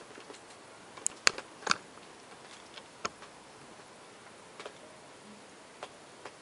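A handful of irregular sharp clicks and ticks, the loudest at the very start and a quick cluster about a second in, over a steady faint hiss. No thunder is heard.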